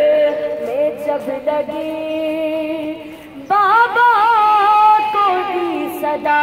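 A woman's solo voice chanting a noha, a Shia mourning elegy, unaccompanied. She holds long, wavering notes, then leaps to a higher, louder line about three and a half seconds in.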